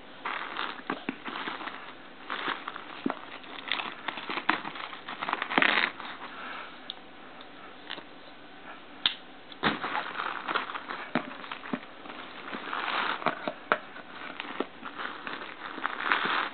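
Plastic shrink-wrap being peeled off a small cardboard box, crinkling and crackling in irregular bursts, with a couple of sharp clicks near the middle.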